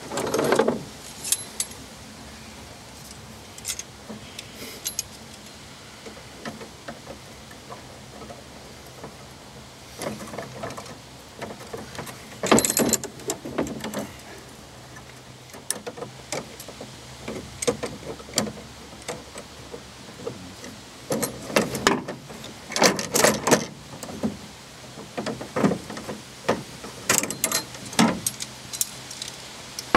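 Steel body-grip beaver trap and its setting tongs clinking and clanking against each other and a pickup's metal tailgate as the trap is worked off a caught beaver. The clanks come in short irregular clusters, busiest about halfway through and near the end.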